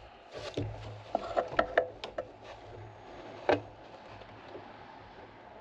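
Light clicks and taps of small metal parts and a screwdriver being handled while wires are fastened to a key switch, with one sharper click about three and a half seconds in, over a faint low hum.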